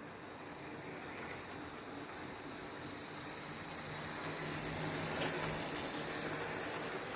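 An OO gauge model train running along the track, a steady whirring rattle that grows louder to a peak about five seconds in.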